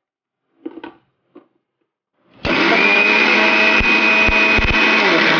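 Electric mixer grinder running with a stainless steel jar of dry semolina, grinding it finer. A few light knocks come first as the jar is set on the base. The motor starts about two seconds in with a steady whine, and is switched off near the end, its pitch falling as it winds down.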